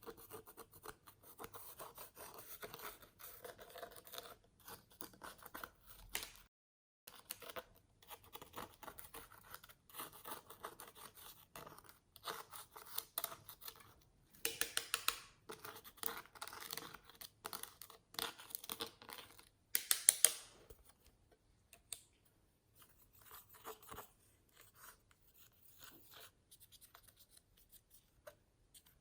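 Slime being worked by hand: a long run of small sticky clicks and crackles, loudest about fifteen and twenty seconds in, thinning out near the end.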